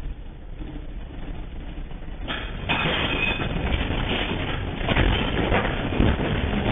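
Earthquake shaking: a heavy, continuous rumble like a passing train, with rattling and knocking of things being shaken, growing louder about two and a half seconds in.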